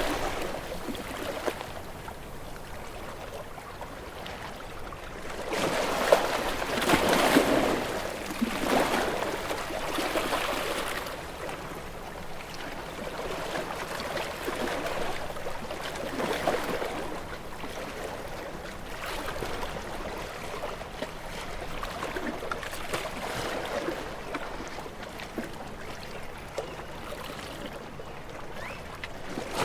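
Calm ocean waves washing against rocks: a louder surge breaks about six seconds in and another around ten seconds, with quieter splashing and gurgling of water among the rocks between them.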